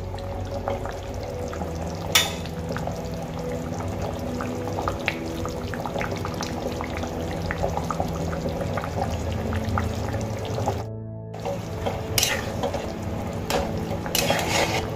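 Background music with a steady run of sustained notes, over the crackling and bubbling of a rui fish curry boiling hard in a kadai. The sound cuts out briefly about eleven seconds in.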